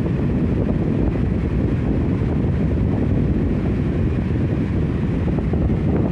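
Electric fan running steadily, its airflow blowing on the microphone as a constant low rumble of wind noise.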